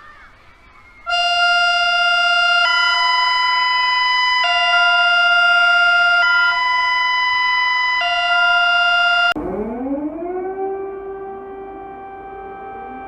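An emergency alert signal. About a second in, a loud electronic alert tone starts, switching back and forth between two steady pitches every second or two. Around nine seconds in it cuts off abruptly and a siren winds up from low to a steady held pitch.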